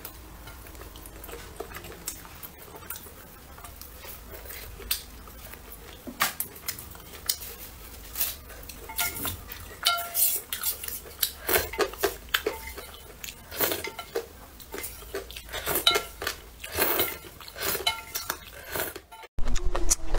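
Chopsticks clinking and scraping against a metal bowl as noodles are stirred and lifted from broth: irregular small knocks, a few of them ringing briefly, growing busier after the first several seconds.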